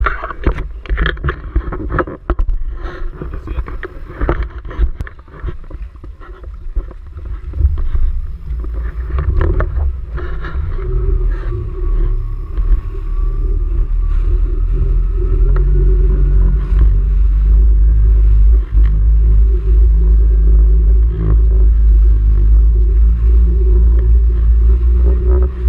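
Jet ski engine running as the craft moves off and picks up speed, its steady drone growing louder over the first half and then holding loud. The first several seconds are broken by sharp knocks and handling noise on the camera.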